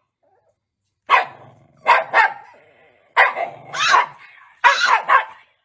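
Shiba Inu barking repeatedly: about eight short, sharp barks in quick clusters, starting about a second in.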